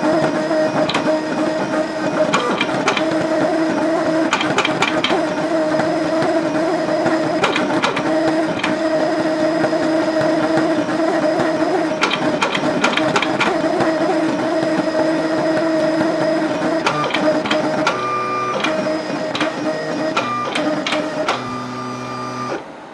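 CT630 vinyl cutter plotting with a pen on butcher paper: its stepper motors drive the carriage and paper rollers with a steady whine, broken by frequent sharp clicks. Near the end the tones change as the paper is fed out, and the machine stops just before the end.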